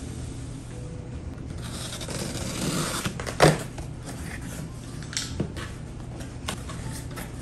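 Cardboard shipping box being opened by hand: scraping and rustling of cardboard flaps and tape, with a single sharp knock about halfway through and scattered small clicks.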